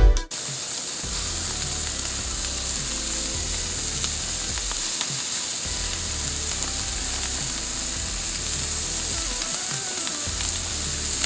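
Smash burger patties sizzling on the hot flat side of grill grates over charcoal: a steady, even hiss of frying beef fat.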